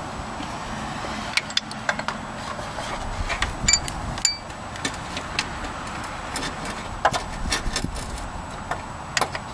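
Socket and extension clinking and tapping against metal as they are fitted onto an alternator mounting bolt: irregular sharp clicks and knocks, two of them ringing briefly about four seconds in.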